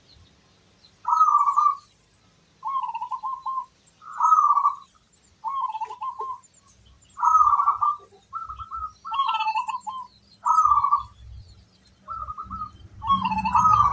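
Zebra dove (perkutut) cooing: a run of short, warbling, rolling coo phrases repeated about every second, with faint high chirps above them.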